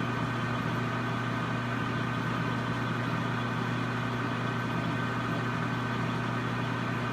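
Metal lathe running at a steady speed, a constant motor hum with no change in pitch.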